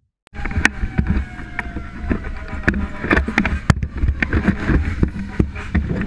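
Inside a fire engine's crew cab: a steady low engine rumble with frequent clattering and knocking of equipment. Over the first few seconds a whine slowly falls in pitch.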